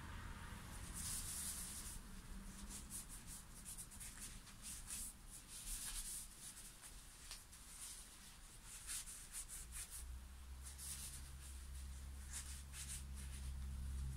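Irregular hand strokes rubbing over a roasted maple guitar neck, as when it is sanded or wiped with finishing oil. A low steady hum comes in about ten seconds in.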